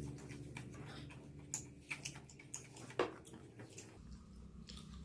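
Close-miked chewing of fried chicken with a thick flour coating: wet mouth sounds broken by several sharp crunches, the loudest about three seconds in.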